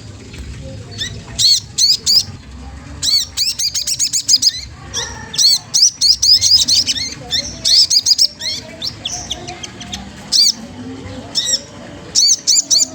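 Sogon trotol songbird calling: short bursts of quick, high chirps and fast trilled runs, repeated with brief gaps between them. It is a challenge call used to goad rival birds into singing.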